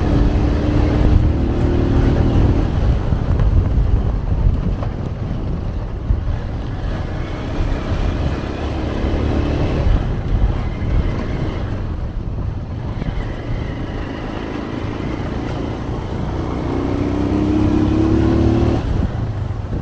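Motorbike engine running under way, its pitch rising and falling with the throttle and climbing about three-quarters of the way through, over a steady low rumble of wind and road noise.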